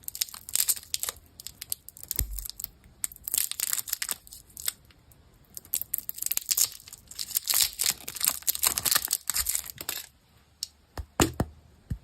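Candy wrappers crinkling and being torn open in irregular crackly bursts, dying down to a few separate clicks in the last two seconds.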